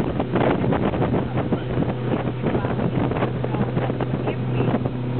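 Small motorboat's engine running steadily while under way, with water rushing past the hull and wind buffeting the microphone.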